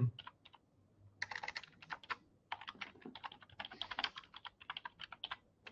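Typing on a computer keyboard: irregular runs of quick, quiet keystrokes with short pauses between them.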